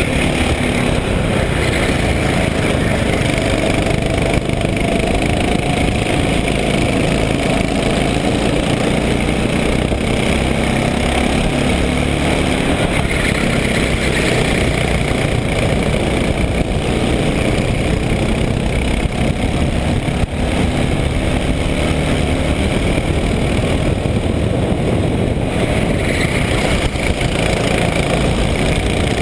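Racing kart engine running hard, heard onboard from the driver's seat, its note rising and falling as the kart goes through the corners and down the straight.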